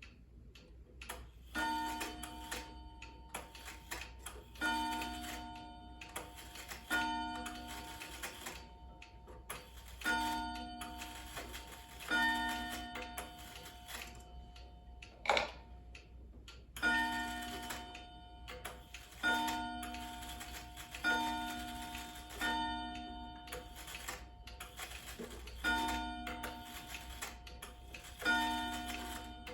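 Wind-up pendulum clock striking: a ringing strike that fades every two to three seconds, about a dozen in all, over the clock's ticking. There is a single sharp click about halfway through.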